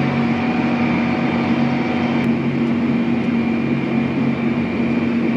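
Farm tractor running steadily, heard from inside its cab: a constant engine hum with a thin high whine over it.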